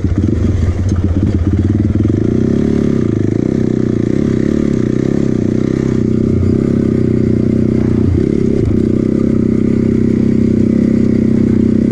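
Honda TRX450 quad's single-cylinder four-stroke engine pulling away and then running steadily at speed on a dirt trail. The revs rise about two seconds in, with brief dips in revs around eight seconds in.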